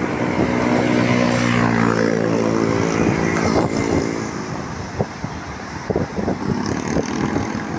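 A motor vehicle's engine running close by, holding a steady note for the first few seconds and fading away about three and a half seconds in. Street traffic noise with a few scattered knocks follows.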